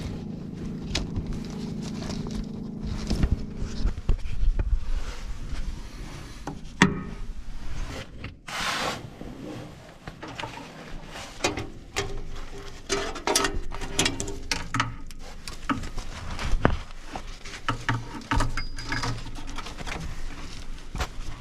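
Hands and tools at work routing and hooking up a shut-off cable in an excavator's engine bay: scattered clicks, knocks and rubbing. A low steady hum runs under the first four seconds, then stops.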